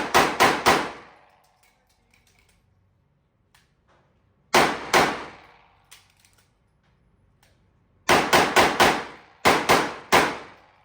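Handgun shots fired in fast strings during a timed match stage: the end of one string at the start, a pair about four and a half seconds in, then two quick strings of four to five shots each near the end, every shot trailing off in a short ringing decay.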